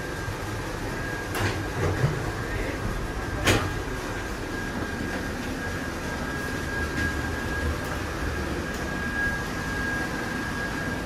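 Garaventa/SISAG funicular car running along its track: a steady rumble with a steady high whine held throughout. Two sharp clicks come in the first four seconds.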